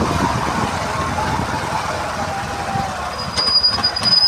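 Motorcycle running while being ridden along a road, a steady rough rumble with wind noise on the microphone. About three seconds in, a thin high steady tone joins it.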